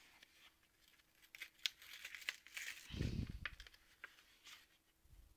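Foil Pokémon card booster pack being torn open and crinkled in the hands: faint scattered crackles for a few seconds, with a soft low bump about three seconds in.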